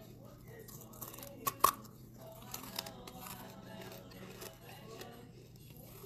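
A piece of red brick bitten and crunched between the teeth, with two sharp cracks about a second and a half in, then smaller crunches as it is chewed.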